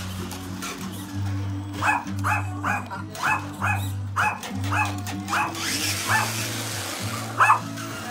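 A small dog barking excitedly in a quick series of short, high yaps, about a dozen of them, most packed into the middle of the stretch with a last, louder one near the end. Background music with a steady bass line plays throughout.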